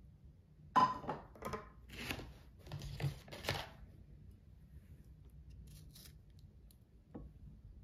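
A quick string of scraping, rustling handling sounds over about three seconds, the first one the loudest, then a single faint tick near the end.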